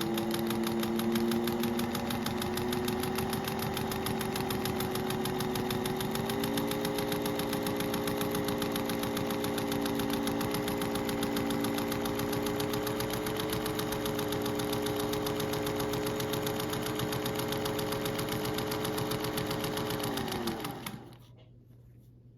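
Singer 201 sewing machine sewing at speed, sewing the shorter stitch length: a steady motor whine over a rapid, even needle rhythm. The pitch steps up slightly about six seconds in, and the machine winds down and stops near the end.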